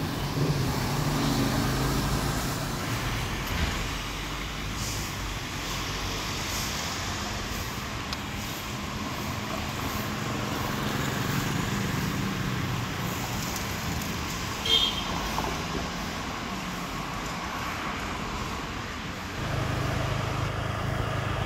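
Road traffic running steadily: car and motorbike engines with a low rumble, and a brief sharp high squeak about two-thirds of the way through.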